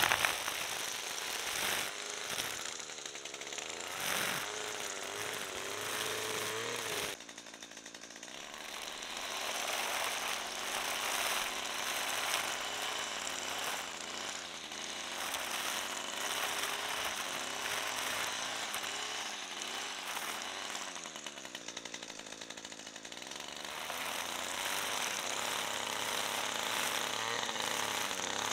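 String trimmer with a metal disc cutting head running at speed and cutting through lawn grass. The sound drops and changes sharply about seven seconds in.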